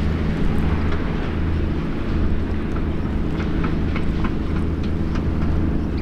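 Steady low engine drone, with faint short ticks scattered above it.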